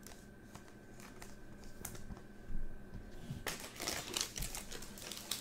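A few soft clicks of trading cards being handled, then, from about three and a half seconds in, the dense crinkling of a foil trading-card pack wrapper being picked up and handled.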